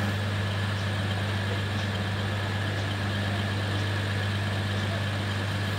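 Diesel multiple-unit train's engines idling steadily: a constant deep hum with a faint, steady high whine over it.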